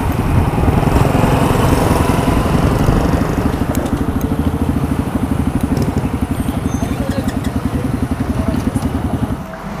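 Benelli TXM motorcycle engine running at low revs with a steady, even exhaust beat as the bike rolls slowly, heard from on the bike, with wind noise fading over the first few seconds. The engine sound drops away shortly before the end.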